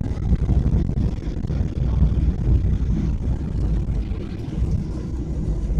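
Steady low rumble of an airliner heard from inside the cabin.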